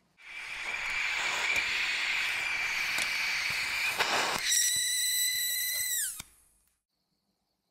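Gas torch flame hissing steadily while it heats a seized, rusted clockwork motor to free it. A few sharp metal clicks come about four seconds in as the motor is pried loose. The flame then takes on a high, steady whistle for a couple of seconds, which falls in pitch and cuts off.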